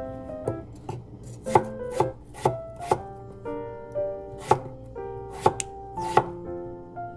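A kitchen knife chopping vegetables on a cutting board, about eight irregular strokes, over soft instrumental background music.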